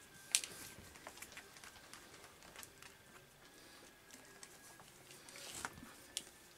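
Faint clicks and rustles of a leather Grinders boot being laced up, the laces pulled through the eyelets, with a sharper click shortly after the start and another near the end.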